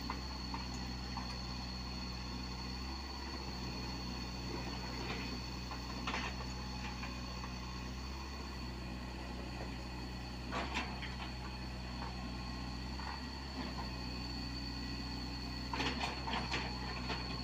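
Komatsu PC75UU mini excavator's diesel engine running steadily while the machine works earth, with a few sharp clanks: one about six seconds in, one about ten seconds in, and a short run of them near the end.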